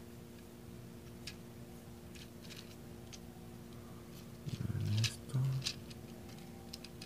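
Light plastic clicks and taps as a Transformers Warriors-class Optimus Prime action figure's joints and parts are handled and posed. About halfway through there are two short low hum-like sounds, the loudest thing heard.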